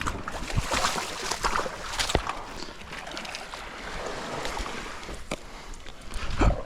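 Sea water washing and sloshing against rocks, with wind on the microphone and a few sharp knocks.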